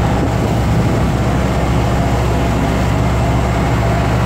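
Motorboat engine running steadily under way, with a low even hum and the rush of water past the hull.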